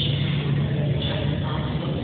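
Steady low rumble of jet airliner engines idling on the apron, with a constant deep hum under a wider hiss.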